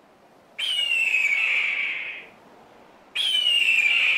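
A hawk screaming twice: two long, hoarse screams that start abruptly and fall in pitch, each about a second and a half long, the second beginning about three seconds in.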